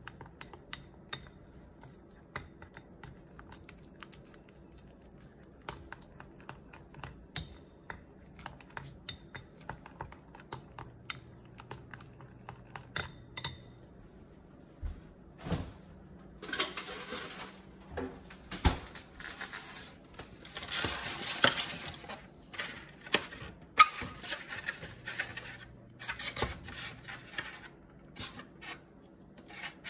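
Wooden chopsticks whisking thick batter in a glass bowl, with quick irregular clicks of the sticks against the glass. After a short pause about halfway through comes louder scraping and rustling, mixed with knocks.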